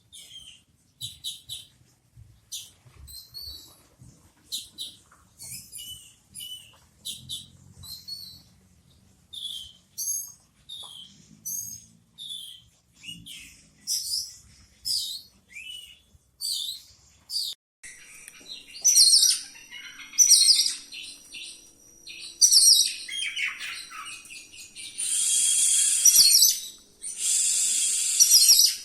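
Oriental magpie-robin (kacer) singing. At first it gives a string of short, separate high whistles and chirps. From a little past halfway it breaks into a louder, near-continuous rolling song with mimicked fill-in phrases.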